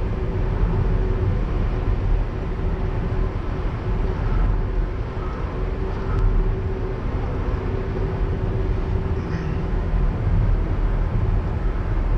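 Cabin noise of a Volkswagen Caddy with a two-litre engine cruising at steady speed on an open road: a low, even engine drone under tyre and road rumble, with a faint steady hum.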